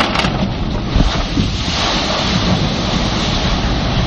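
A ship's hull sliding sideways off the slipway and hitting the river, with a heavy knock about a second in, then rushing, splashing water that builds and holds. Wind buffets the microphone throughout.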